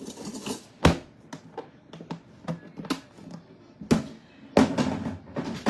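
Sharp knocks and taps of objects being handled on a table, one about a second in and another near four seconds, with a short clatter near the end.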